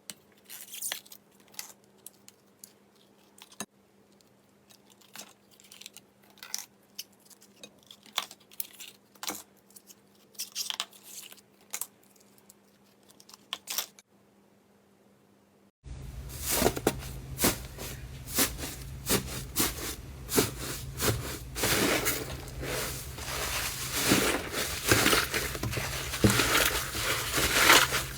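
Slime being squeezed and poked by hand, giving scattered sticky clicks and crackles. About halfway through it switches abruptly to a louder, denser run of crackling and popping over a low hum.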